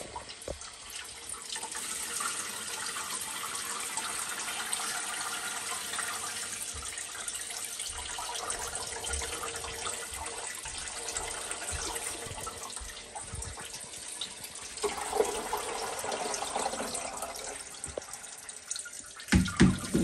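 Resin indoor tabletop fountain running: water from its pump streams and drips down inside the ring, splashing steadily onto the figure and into the basin. A few soft knocks come near the end.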